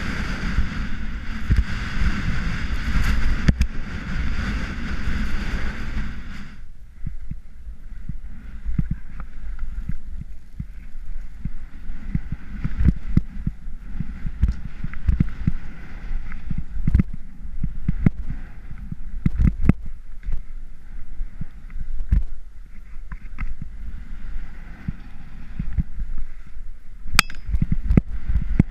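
Salomon Rocker II skis sliding and scraping over snow while wind buffets the microphone. A dense rush of wind and ski noise stops suddenly about six seconds in, leaving a lower rumble broken by frequent short knocks as the skis hit bumps.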